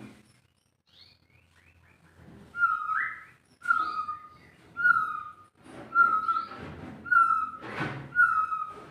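White-rumped shama giving a short whistled note over and over, about once a second, each note dropping slightly in pitch with a rough, scratchy edge. The notes begin a couple of seconds in.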